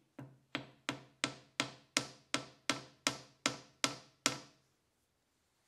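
A small hammer tapping steadily, about twelve blows at roughly three a second, each with a short metallic ring from the steel draw knife clamped in the vise. The tapping seats the wooden handle with its copper ferrule onto the tang, and it stops about four seconds in.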